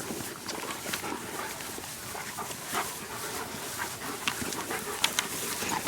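Hounds panting, with a few short high-pitched sounds over a steady rushing background.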